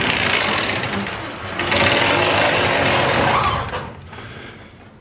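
Garage door being lifted by hand, rattling as it slides along its metal tracks, in two runs with a short pause between, the second lasting about two seconds.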